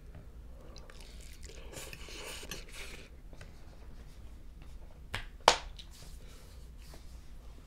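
A person chewing and eating spicy ramen noodles, with soft mouth noises and a single sharp click about five and a half seconds in.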